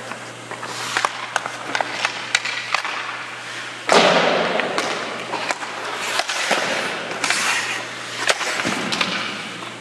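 Hockey goalie's skate blades scraping and carving the ice as he gets up and pushes across the crease, with a sharp scrape about four seconds in and more scraping later. Scattered light clicks and taps of stick and pucks on the ice.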